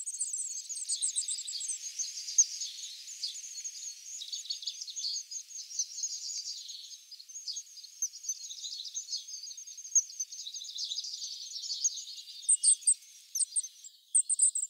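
Goldcrest nestlings begging at the nest: a dense, continuous stream of thin, very high-pitched chirps, the brood calling to be fed by the adult. Near the end, sharper very high notes come in short separate clusters.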